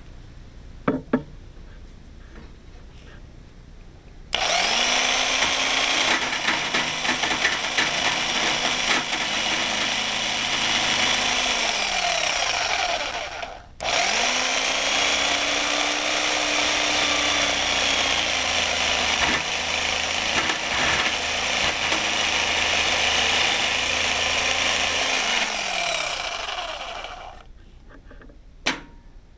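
Bosch jigsaw cutting a relief notch into an RV awning support arm. It runs in two long passes with a brief stop between them, the motor winding up at each start and down at each stop. A few clicks come before and after the cutting.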